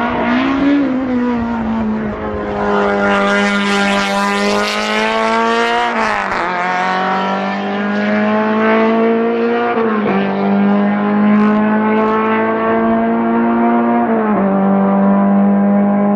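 Honda racing car engine running at high revs, its pitch held nearly steady with brief dips and recoveries about every four seconds.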